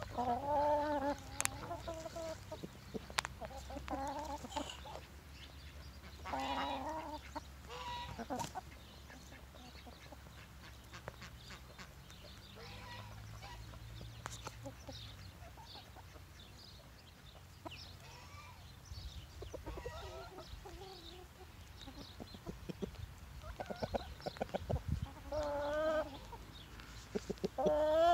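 Free-range chickens clucking in short bursts of calls while foraging, with a quieter lull in the middle. Scattered sharp clicks run between the calls, and the loudest calls come near the end.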